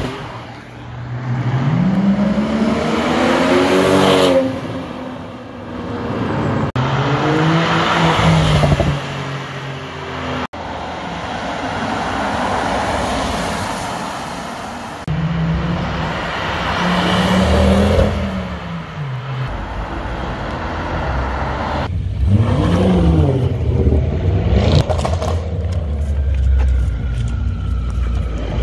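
Performance car engines accelerating away, one car after another: a Porsche 911, an Audi RS6 Avant, then a BMW M5. Each engine note climbs and drops back at the gear changes, with abrupt cuts between the clips.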